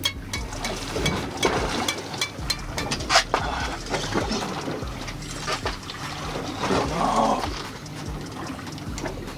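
Water sloshing and splashing against a small boat's hull, with irregular clicks and knocks throughout and a louder stretch about seven seconds in.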